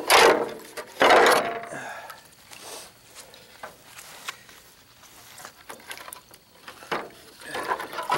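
The paper-thin, corroded sheet metal of a boat fuel tank's top is bent and torn back by hand. It makes two loud crinkling scrapes in the first second and a half, then lighter metallic clicks. Near the end a splash is heard as a hand plunges into the water in the tank.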